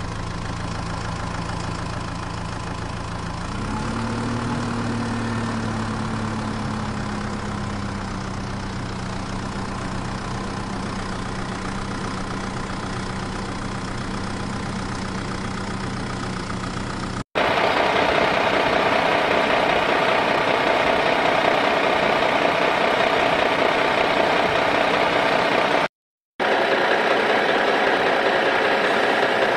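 Engine idling sound effect: a steady hum that rises slightly in pitch around four seconds in and then holds. About seventeen seconds in it cuts suddenly to a louder, rougher engine sound. That sound drops out for half a second near the end.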